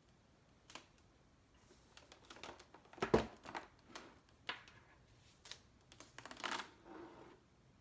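Hands handling packaging and parts during an unboxing: scattered clicks, taps and short rustles, with a louder knock about three seconds in and a longer rustle near the end.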